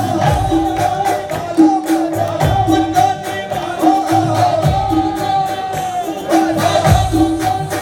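Live qawwali music: singing over harmoniums and tabla, with a deep drum stroke about every two seconds under a busy, steady rhythm.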